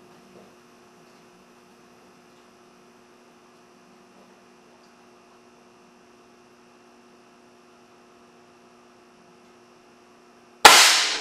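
Faint steady electrical hum, then near the end a single sudden, loud blast as the solenoid-valve air cannon, built on a fire extinguisher tank, fires a stink bomb at 400 psi, the sound dying away within about half a second.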